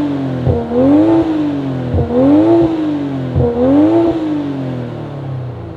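BMW M340i's 3.0-litre turbocharged inline-six, breathing through a Remus aftermarket exhaust, free-revved while parked. The revs rise and fall three times, then drop back toward idle near the end.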